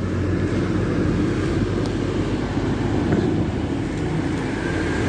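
Class 222 Meridian diesel multiple unit's underfloor diesel engines running, a steady low rumble.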